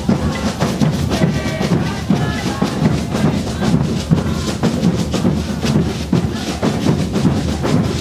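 Folk drum group playing a steady, dense rhythm on drums beaten with sticks, with voices singing over it early on.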